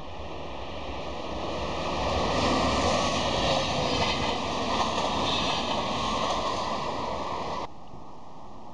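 Electric passenger train passing close by: a rushing rumble of wheels on rail that builds over the first two seconds and cuts off suddenly near the end.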